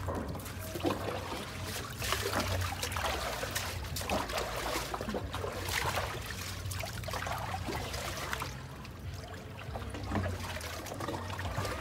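Water pouring and trickling onto a dog being bathed, with uneven splashes and dribbles over a steady low hum.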